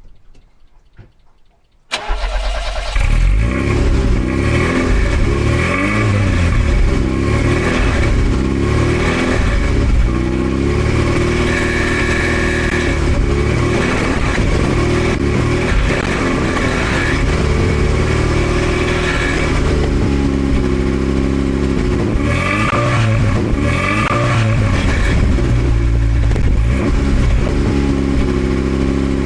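Classic car engine starting about two seconds in, catching at once, then running with repeated revs that rise and fall in pitch.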